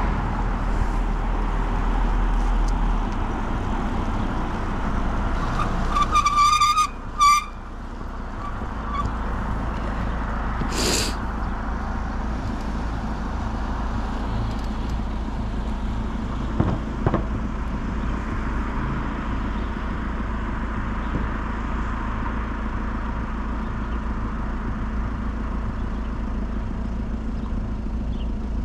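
Steady wind, tyre and street noise from a bicycle ride, with two short honks about six and a half to seven seconds in and a brief sharp ping a few seconds later.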